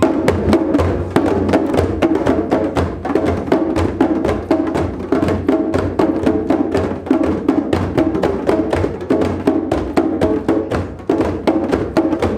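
Djembe hand drums played by hand in a fast, steady rhythm of dense, quick strokes.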